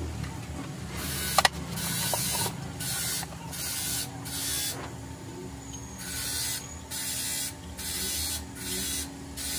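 A cloth rubbing over a car tail light's plastic lens and chrome housing in quick strokes, each a short swish, with a pause near the middle. A sharp click comes about a second and a half in.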